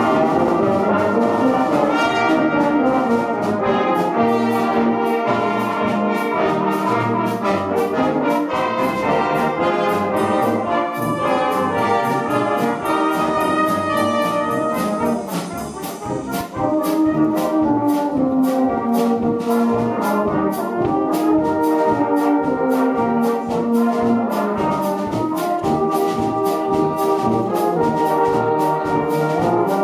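Brass band playing a lively piece, with cornets, trombones and tubas in full chords over a steady drum beat. The band comes in suddenly at the start and drops briefly in volume about halfway through.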